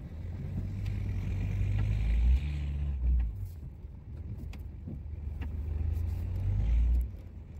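Dodge Ram 2500 pickup's engine working under load as the snow plow pushes into a bank, heard from inside the cab. The engine note rises twice and drops off abruptly each time, once about two seconds in and again near the end, with a faint hiss during the first push.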